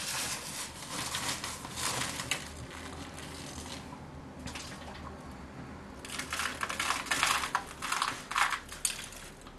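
Hands scooping gritty potting substrate off a sheet of newspaper and working it into a plastic plug tray: crunching grit and rustling paper, in two spells, the second starting about six seconds in.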